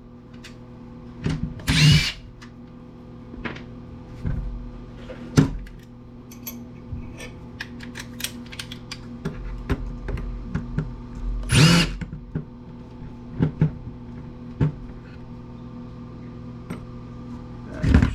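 A power screwdriver whirring in short spells as it backs screws out of a power planer's housing, the longest spells about two seconds in and about twelve seconds in. Between them come small clicks and taps of screws and plastic parts being handled, over a steady low hum.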